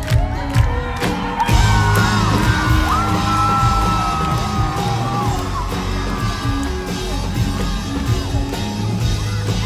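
Live rock band playing loudly, with drums and electric guitar, and voices yelling and singing over the music. About a second and a half in, the full band comes in after a stretch of mainly drum hits.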